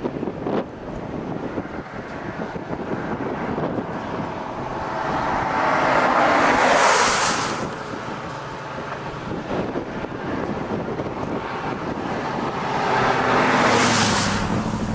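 Wind buffeting the microphone, with two vehicles passing on the road, each swelling up and dying away, about seven seconds apart.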